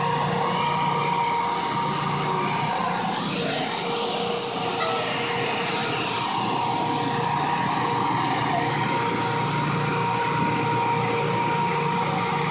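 Fire truck engine running steadily, a constant drone with a steady whine over it.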